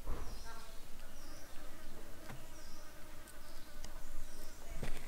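Insects buzzing outdoors, with a short high call repeating about once a second and a few light knocks.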